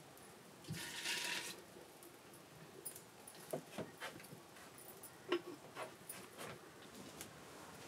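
Water briefly poured from a small clay pot into a larger clay pot, about a second in, followed by scattered light clicks and knocks from handling at the wood-fired stove.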